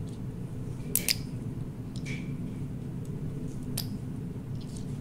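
Small plastic PCR tube snap caps clicking as gloved fingers snap them open, a few sharp clicks (a double one about a second in), over a steady low hum.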